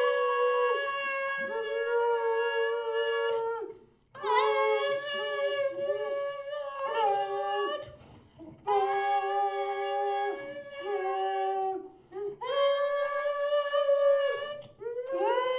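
Two voices, a woman's and a man's, holding long wordless notes a little apart in pitch, in phrases of about four seconds separated by short breaks for breath. The notes shift in steps between phrases rather than gliding.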